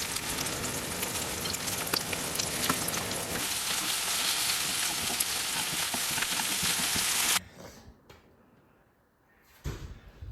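Food frying in hot oil in a pan: a dense sizzle full of crackling pops that cuts off suddenly about seven seconds in. A short knock follows near the end.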